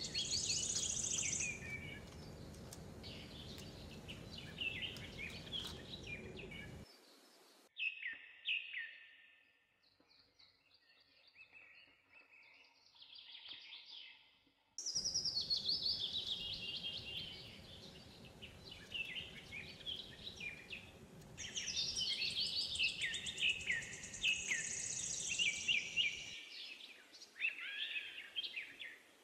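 Small birds chirping and singing, many quick high calls and trills, over a steady low background noise that drops out abruptly for several seconds in the middle and again near the end.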